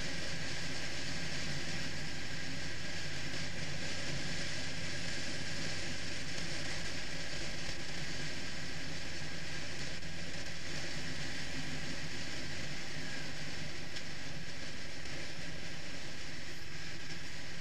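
Triumph Rocket III motorcycle engine running steadily while riding at street speed, under constant wind and road rush on the handlebar camera. The engine note changes about three-quarters of the way through.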